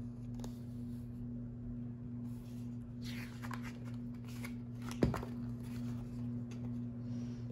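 Paper rustling as a picture book's page is turned, with one sharp tap about five seconds in, over a steady low hum.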